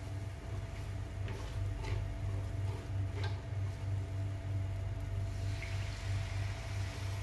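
Silicone spatula stirring and scraping onions and spices around a nonstick frying pan, with a few short scrapes and knocks. About five and a half seconds in, water is poured into the hot pan with a rushing hiss. A low pulsing hum runs underneath.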